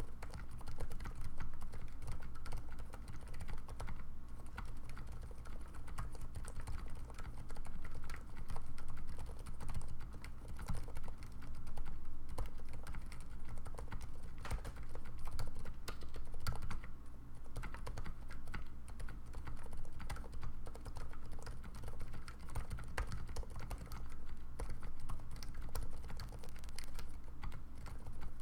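Continuous fast typing on a TGR Jane mechanical keyboard fitted with 78g Cherry MX Silent switches in Zealios housings, lubed with Krytox 205/105: a dense, irregular stream of keystrokes.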